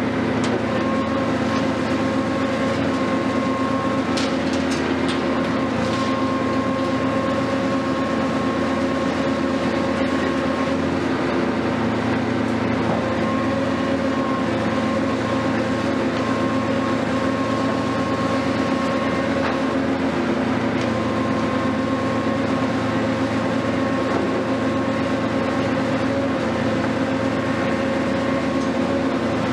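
Hitachi 470 long-reach demolition excavator running steadily, with a constant drone and a higher whine that comes and goes as its boom works. A few sharp knocks sound about four to six seconds in.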